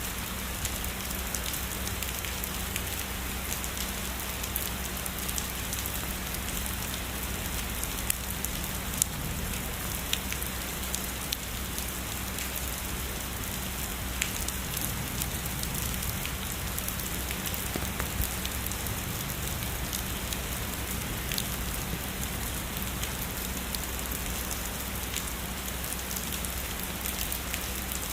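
Heavy rain falling steadily, with individual drops tapping sharply now and then over the even hiss.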